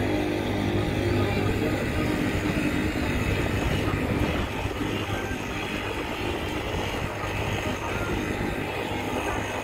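Steady low engine drone of a Nile cruise boat under way, with a steady hiss over it.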